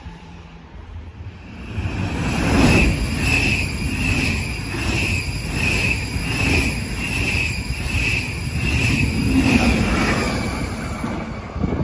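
SBB double-decker passenger train with a Re 460 electric locomotive passing close by at speed. Its running noise comes up about two seconds in and carries a regular pulse a little under twice a second as it rolls past, easing off near the end.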